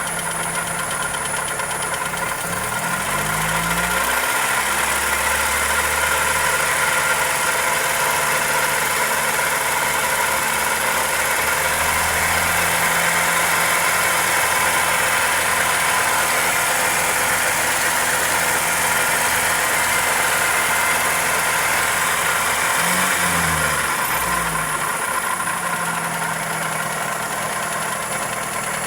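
Toyota 2E inline-four engine running with a ticking, knocking noise, which the owner links to the valvetrain or a connecting rod. It rises from idle about three seconds in, holds at a raised speed, and drops back to idle a few seconds before the end.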